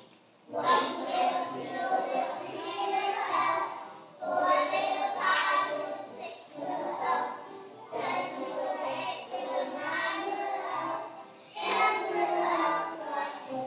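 Group of young children singing a song together over a musical accompaniment, in phrases with short breaks between them.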